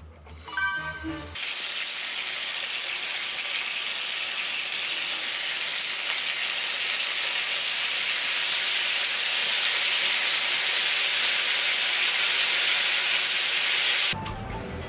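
Sauce-coated heart skewers sizzling on an electric griddle: a steady frying hiss that starts suddenly about a second and a half in, grows slightly louder, and cuts off just before the end. Before it come a few short clinks from a frying pan and chopsticks.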